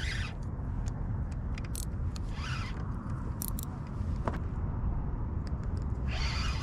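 Spinning reel being worked to bring in a small redfish on light tackle. It gives three short bursts of reel noise, near the start, about two and a half seconds in and near the end, over a low steady rumble.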